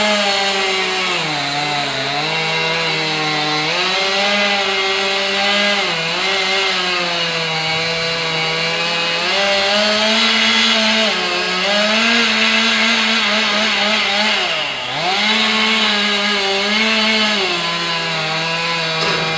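Chainsaw cutting wood, its engine pitch repeatedly dropping under load in the cut and rising again as it frees up, with one deep sag about fifteen seconds in.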